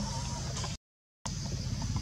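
Steady low rumble of background noise with a faint high hum over it, broken a little under a second in by a half-second gap of dead silence.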